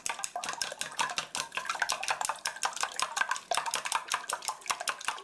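Wooden chopsticks beating raw eggs in a stainless steel bowl: a fast, steady run of clicks and taps as the chopsticks strike the metal bowl.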